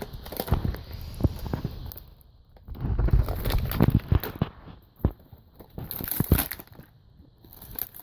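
Toy packaging being worked open by hand: plastic and cardboard crinkling and crackling, with irregular knocks and a few louder bursts of handling.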